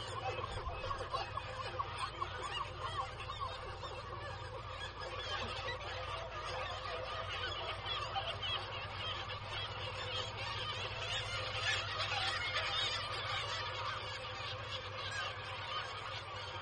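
Nesting colony of black-legged kittiwakes calling: a dense, continuous chorus of many overlapping calls, a little busier about twelve seconds in, over a steady low hum.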